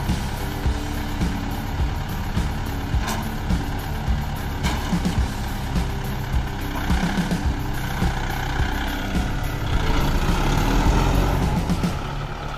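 Kubota MU5501 tractor's four-cylinder diesel engine running steadily under load while manoeuvring a loaded trolley. It grows louder about ten seconds in.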